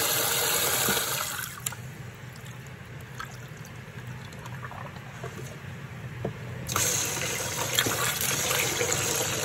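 Kitchen tap running into a stainless steel bowl of rice being rinsed by hand to wash out the starch. The running water stops about a second in, giving way to a quieter stretch while the cloudy water is tipped off, and starts again about two-thirds of the way through.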